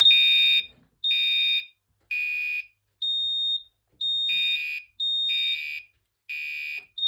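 Gentex mini horn on a fire alarm board beeping in even pulses about once a second, a shrill two-tone sound that sounds like a piezo of a panel. It was set off by opening a Fire-Lite BG-12 pull station.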